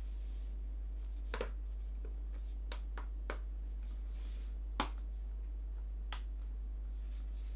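A handful of sharp small clicks and taps as laptop parts are handled and fitted during reassembly, the loudest nearly five seconds in, over a steady low electrical hum.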